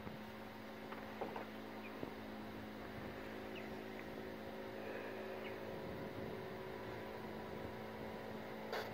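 A faint, steady hum with a few soft clicks about a second and two seconds in.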